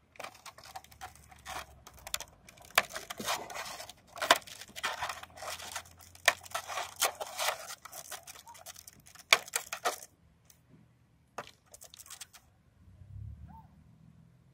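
Stiff clear plastic packaging crackling and crinkling as it is pried apart by gloved hands, with sharp snaps and rustles. The crackling stops about ten seconds in, leaving a few faint clicks.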